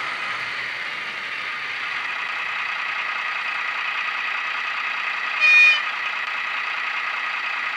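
Sound module of a Mehano Vossloh G1206 model diesel locomotive playing a diesel engine running sound through its small built-in speaker, thin with little bass. About five and a half seconds in, a short horn toot, the loudest sound here.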